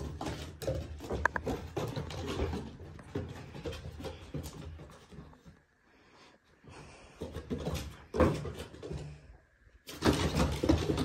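A German Shepherd and a Bernedoodle puppy playing on a wooden deck: paws scrabbling and claws clicking on the boards, with scuffling and dog noises. It goes quieter for a moment about midway, then picks up again.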